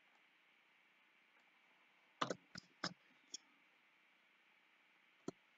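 Sharp clicks of a computer mouse and keyboard over faint steady hiss. Four come close together a little over two seconds in, and one more comes near the end.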